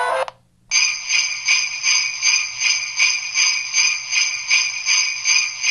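Sleigh bells jingling in a steady rhythm, about two and a half shakes a second, with bright ringing tones. It is a recorded Christmas sound effect played by the onboard sound system of a Broadway Limited HO scale K7 stock car. Just before the bells start, the tail of a short piece of music ends abruptly.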